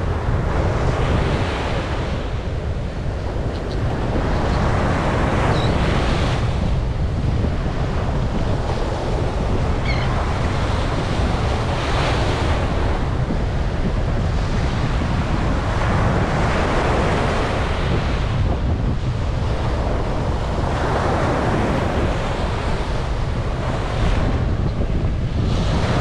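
Ocean surf breaking and washing up a sandy beach, the rush of water swelling every few seconds, over a steady low rumble of wind buffeting the microphone.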